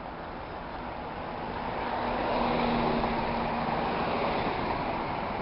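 Road traffic: a car passing close, its tyre and engine noise swelling about two seconds in and staying loud.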